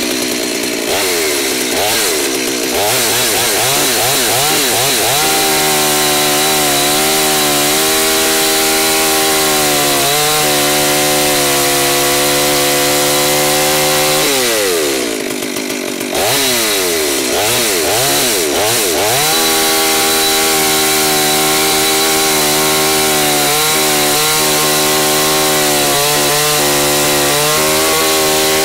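Holzfforma G388 two-stroke chainsaw held at full throttle, cutting through a log. The engine pitch wavers as the chain bites, drops off briefly about halfway through, then climbs back to a steady high note as the cut goes on.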